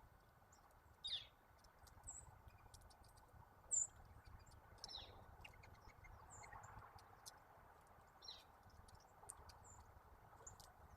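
Backyard songbirds calling: a scattering of short, high chip notes, several sweeping down in pitch, the loudest about four seconds in, with faint ticks between them.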